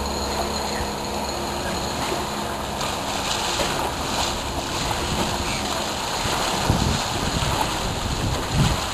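Small motorboat's engine running out on the water, a steady hum that fades after the first few seconds, over an even wash of wind and water noise. Wind gusts rumble on the microphone near the end.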